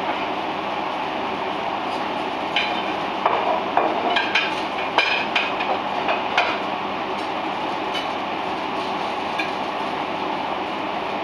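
Plates and a serving utensil clinking as food is put onto plates, with a run of sharp clinks a few seconds in and a few lighter ones later, over a steady kitchen background noise.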